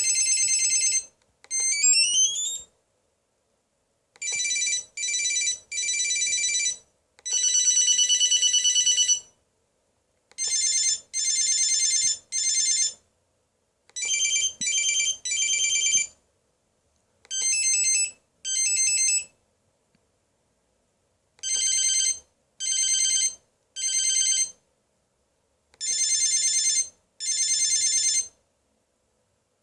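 Samsung SCH-3500 cell phone's built-in ringtones playing one after another: short bursts of high-pitched electronic beeps, mostly in groups of two or three, with a few rising sweeps near the start, each group separated by a second or two of silence.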